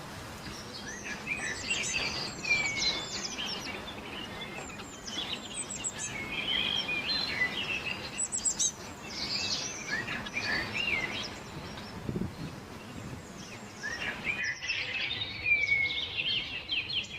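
Several songbirds chirping and singing in quick, overlapping trills, with a short lull about three-quarters of the way through, over a steady background hiss.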